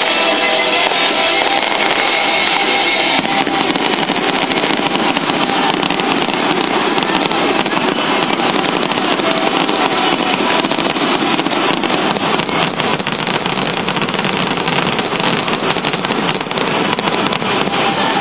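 Fireworks going off in quick succession, a dense run of bangs and crackles, over rock music from the stadium sound system. The music is plainest in the first few seconds before the fireworks bury it.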